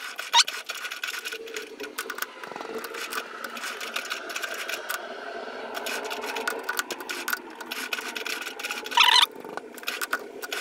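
Small metal lathe's spindle and chuck turning, with rapid, irregular mechanical clicking and rattling over a steady running sound, while the chuck is being trued.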